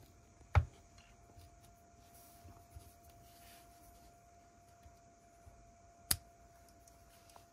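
Plastic Lego pieces being handled and pressed together, with two sharp clicks about half a second in and near the end, and faint rustling in between, over a faint steady hum.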